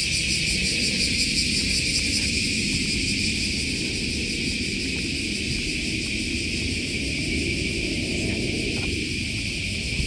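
A dense summer chorus of cicadas calling steadily, a high continuous shrill with a fine pulsing texture, over a low steady rumble.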